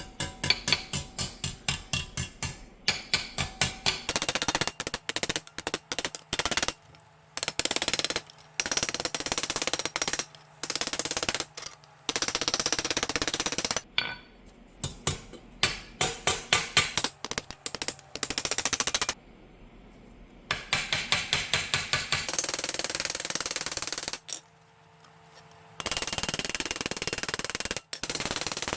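Rapid, sharp strikes in bursts that stop and start, several a second, with stretches of denser rattling: hand work on a rusted steel license plate.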